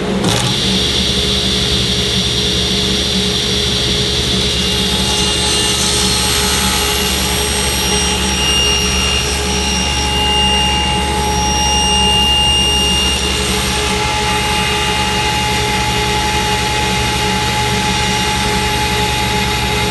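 Table saw switched on at the start and running steadily over a low hum already there. The sound shifts and grows a little louder from about five to thirteen seconds in, as a walnut workpiece held in a sled fixture is pushed through the blade.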